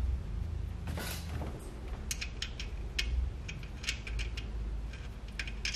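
Small metallic clicks and ticks as a nut and washer are handled and started by hand on a brake master cylinder mounting stud, over a low steady hum.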